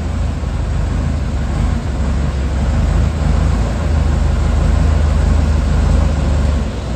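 Heavy diesel engine running steadily with a deep hum, getting a little louder in the second half and easing off near the end, as a vehicle is manoeuvred into the shed.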